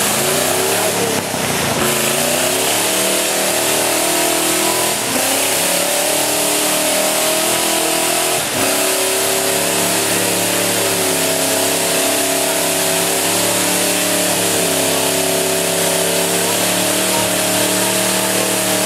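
Small pickup truck's engine revving hard as it churns through a mud hole with its wheels spinning. The revs climb over the first couple of seconds, then hold high and waver, with a brief dip about eight seconds in.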